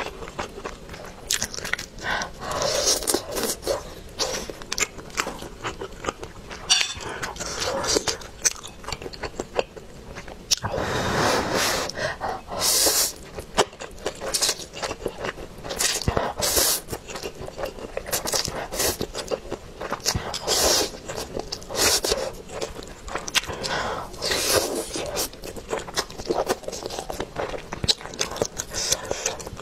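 Close-miked eating: crisp bites into a roasted chicken drumstick and wet chewing, with many short crunchy clicks. Around the middle comes a longer stretch of slurping a mouthful of noodles.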